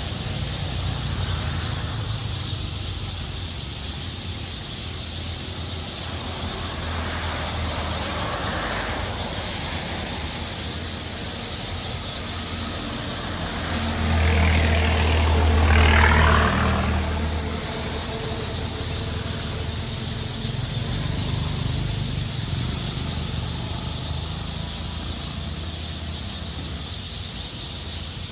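Steady outdoor hiss with a low rumble of traffic. A motor vehicle passes close by about halfway through, growing louder for a few seconds and then fading.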